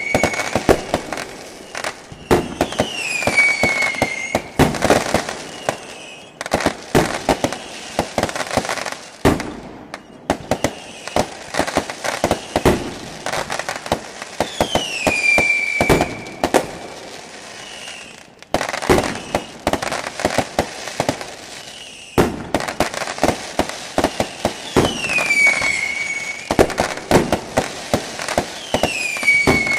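Ground fountain firework spraying sparks, giving a dense, irregular crackling with many sharp pops. A few short falling whistles come through at intervals.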